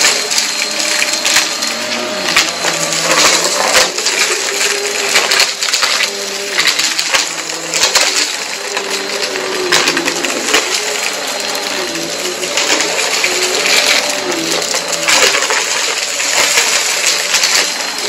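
Vacuum cleaner running over a rug and sucking up crunchy dirt: a motor hum that wavers in pitch under dense crackling and rattling of grit going up the nozzle.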